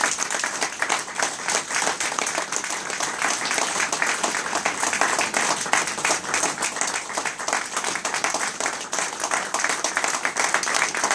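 Audience applauding, many people clapping their hands at once.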